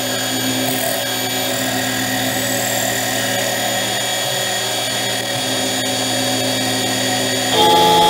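Metal lathe running and turning a large metal workpiece, a steady machine whine with the cutting tool scraping on the spinning part. About half a second before the end the sound steps up louder, with a steady high ringing tone added as the cut changes.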